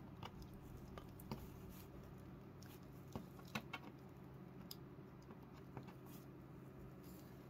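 Faint plastic clicks and ticks from an S.H.Figuarts action figure being handled as its head is turned on the neck joint, a few scattered small clicks over a low steady room hum.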